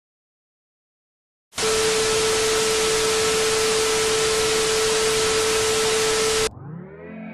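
Loud static-like hiss with a steady hum tone through it, starting abruptly about a second and a half in and cutting off suddenly near the end.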